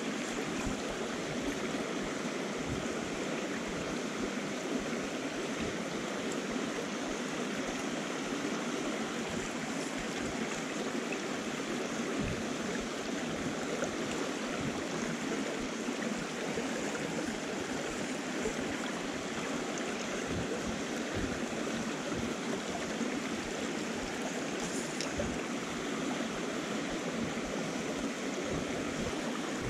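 Small moorland stream running steadily over rocks and shallow riffles.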